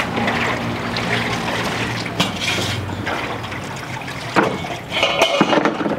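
Water sloshing and splashing as leaves are washed by hand in a basin, with a few knocks and a brief clatter near the end.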